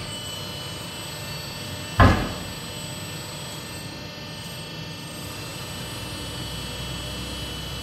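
A single loud clunk about two seconds in from a Ferro TBE 160 Terra tyre changer working a large earthmover tyre, over a steady hum from the machine.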